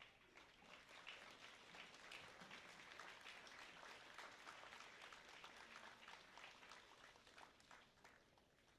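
Faint audience applause: many hands clapping, swelling in the first second and dying away near the end.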